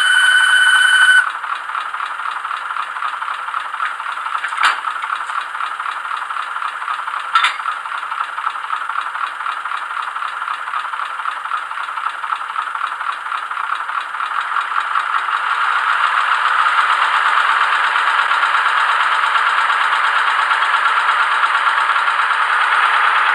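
Sound decoder of an HO-scale model NS series 200/300 shunting diesel playing its diesel engine sound through the model's small speaker: the engine chugs with a fine, even rhythm and a rattle, with no deep bass. A steady high tone cuts off about a second in, two sharp clicks follow, and the engine grows louder from about two-thirds of the way through.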